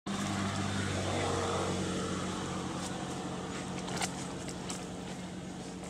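Steady low hum of a running engine with outdoor hiss, fading slightly, and a sharp click about four seconds in.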